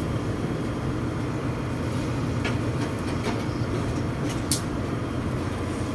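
Steady low rumble of a ship under way, heard on the open deck, with a few faint ticks and one sharper tick about four and a half seconds in.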